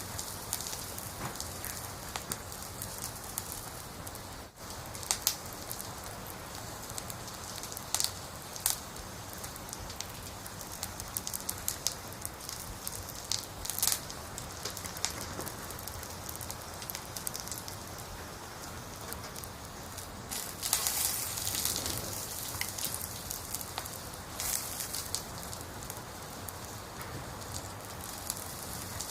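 Logs burning in a campfire: a steady hiss with irregular sharp crackles and pops, briefly denser about two-thirds of the way through.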